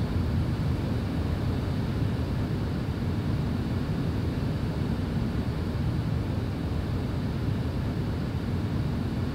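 Steady low rumble of a car being driven, heard from inside the cabin: road and engine noise with no change in pitch.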